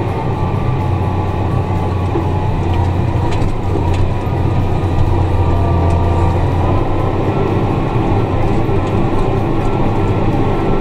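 Tractor engine running steadily under load while pulling a ripper through the ground, a loud, even low drone.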